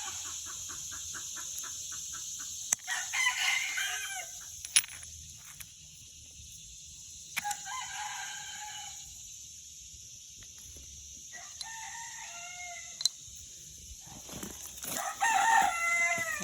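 A rooster crowing, four crows a few seconds apart, each about a second and a half long and falling away at the end.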